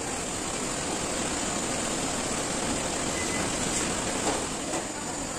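Steady rushing background noise, like a fan or air conditioner, with a few faint clicks about four seconds in as wire connectors are handled at the mixer's terminal block.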